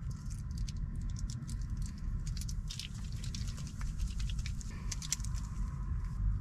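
Foil packaging of a light stick crinkling and crackling in quick, irregular clicks as it is handled and torn open, over a steady low rumble.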